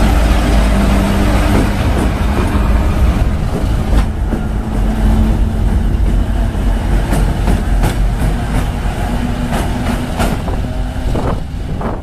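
Two-section diesel locomotive passing close by, its diesel engines running with a steady low drone. From about a third of the way in, the wheels click sharply over rail joints a few times, more often toward the end.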